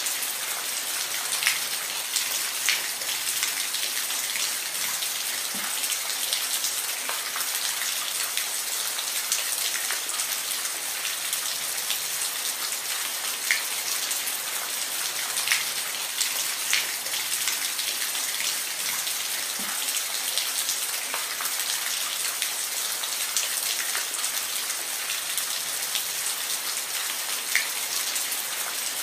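Steady rain falling, an even hiss with scattered close, sharp drop ticks.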